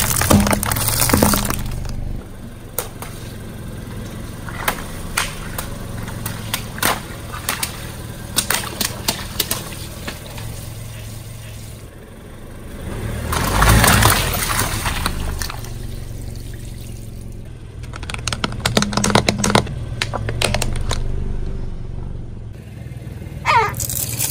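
A car tyre rolling over and crushing objects: aluminium soda cans packed with water beads crunch at the start, followed by scattered cracks and pops of beads bursting. About halfway through comes a loud, splashy burst as water-filled balloons give way under the tyre, and near the end a short squeak falling in pitch as a plastic toy is squashed. A low engine hum runs underneath.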